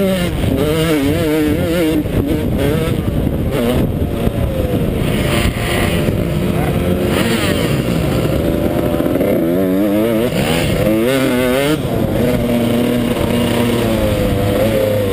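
Yamaha YZ125 two-stroke motocross engine running hard under race load, its pitch climbing and dropping over and over with throttle and gear changes, heard from the rider's helmet.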